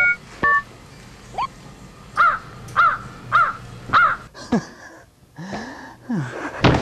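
Two short two-tone beeps from a LiftMaster wireless keypad's buttons at the start. Then a series of four harsh caws about half a second apart, each rising then falling in pitch, followed by a few more gliding calls.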